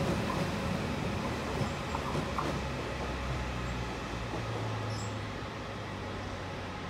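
Flytoget Class 78 electric multiple unit pulling away along the platform, its running noise and low motor hum fading steadily as it recedes, with a few faint clicks about two seconds in.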